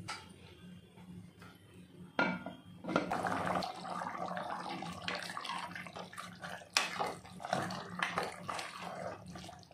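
Vegetable gravy bubbling at the boil in an aluminium pot, with a steel ladle stirring it and clinking against the pot; a sharp knock of metal about two seconds in and another near the seven-second mark. A steady low hum runs underneath.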